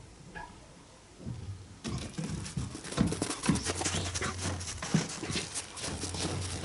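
Dogs moving about close by: a dense, irregular run of scuffling, crackling and soft thumps that starts about two seconds in.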